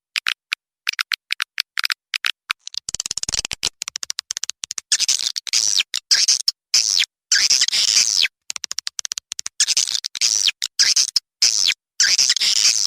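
Recorded swiftlet calls played as a lure: rapid high chirps and twitters in quick succession, cut off abruptly between calls in an edited, looping track meant to draw swiftlets into a nesting house.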